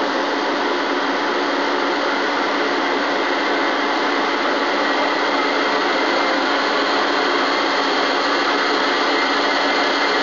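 Spindle of a Hurco BMC20 CNC vertical machining center running with no cut, heard up close: a steady, even hum with faint whining tones that stays unchanged throughout. It is a very quiet spindle.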